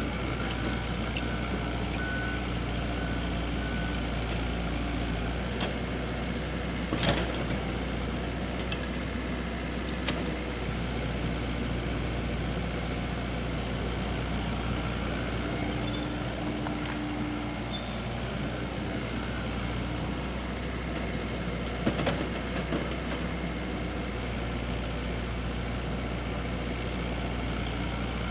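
Excavator engine running steadily at a low hum, with a few sharp knocks.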